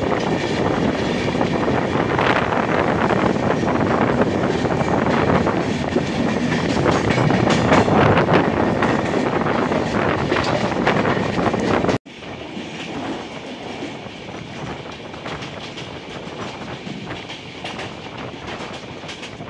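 Passenger train running on the track, its wheels clattering over rail joints and points while another train passes close alongside. The noise drops abruptly about twelve seconds in to a quieter, steadier running sound.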